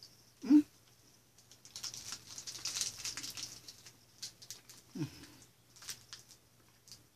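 Mouth sounds of someone chewing a cola-flavoured gummy candy: a spell of fine wet clicks and smacks, with two short hummed 'mm' sounds, the loudest about half a second in and a second one falling in pitch about five seconds in.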